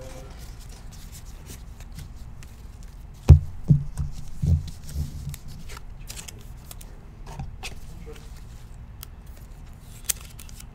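Trading cards and pack wrappers being handled on a tabletop: light rustling and scraping, a quick cluster of thumps a little over three seconds in, and one sharp click near the end.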